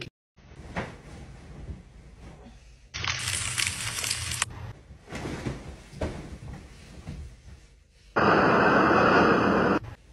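Rustling of a person tossing in bed under a duvet, with a louder noisy stretch a few seconds in. Then a loud, steady rush of blizzard wind lasts about a second and a half near the end and cuts off abruptly.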